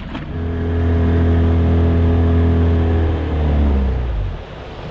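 A motor on a fishing boat starts suddenly and runs with a loud, steady hum for about four seconds. Near the end its pitch falls as it slows and stops, over a fainter low engine noise.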